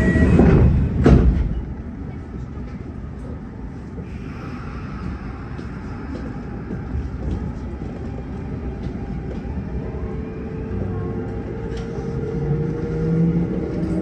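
Inside a Kintetsu 1252 series electric train: the doors close with a thud about a second in, the car stands with a steady hum, and from about ten seconds in the traction motors start a rising whine as the train pulls away from the station.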